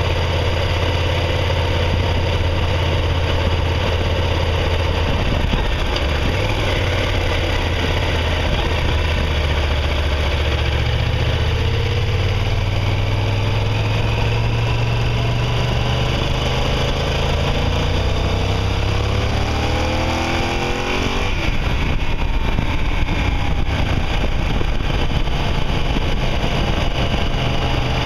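Motorcycle engine running while riding. The engine note climbs slowly around the middle, then the revs rise quickly and drop off about twenty seconds in, before settling into a steady run again.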